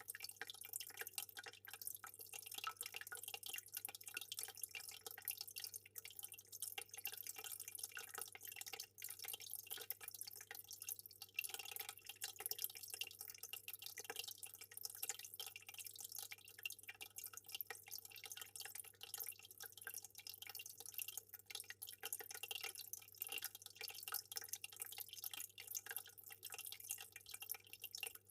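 Aquarium water bubbling and trickling in a continuous, fine patter of small drips and splashes, over a steady low hum.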